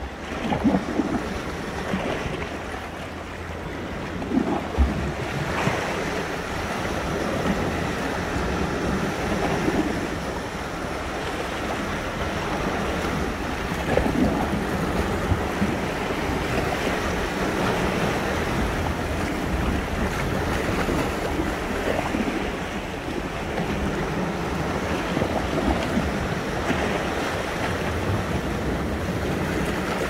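Sea waves washing continuously onto the shore, a steady rushing with a few louder splashes in the first few seconds, and wind on the microphone.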